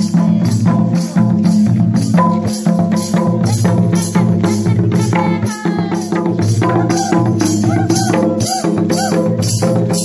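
Folk dance music played live on a two-headed hand drum with jingling percussion, keeping a steady beat of about three strokes a second.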